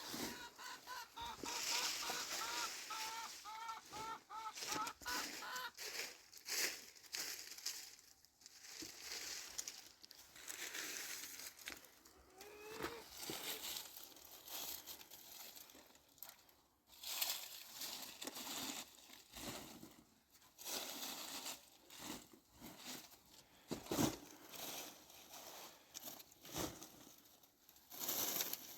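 Domestic fowl calling in a quick run of short, repeated notes for the first several seconds, followed by scattered rustling, knocks and clicks.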